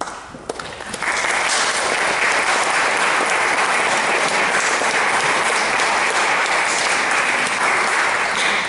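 Audience applauding, swelling to full strength about a second in and holding steady.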